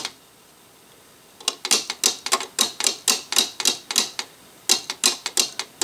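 Small plastic LEGO mallet tapping rapidly on the frog-whacking game of a LEGO Friends arcade set, sharp clicks about five a second that start after a second or so and pause briefly near the end. The taps do not set the frog off.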